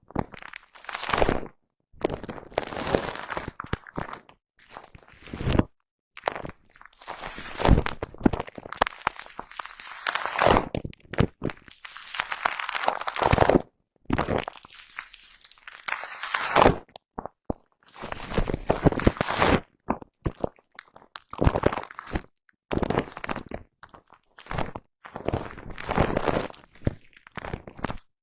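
Foam-covered microphone brushed up close: scratchy, crunchy strokes, each lasting from about half a second to two seconds, with short silent gaps between them.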